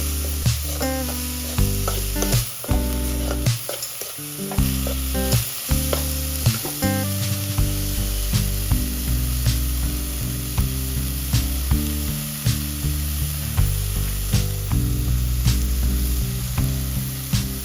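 Food frying in oil in a pan, a steady sizzle with frequent sharp clicks, over background music with a stepping bass line.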